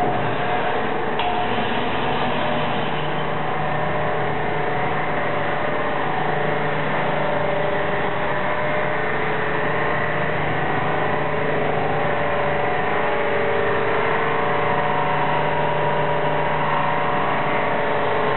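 Seybold Saber IV 58-inch paper cutter's motor running steadily, a constant mechanical hum made of several steady tones, with a light click about a second in.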